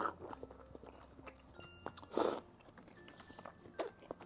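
Close-up mouth sounds of biting and chewing a soft, broth-soaked oden daikon radish: small wet clicks, with a louder noisy burst about two seconds in.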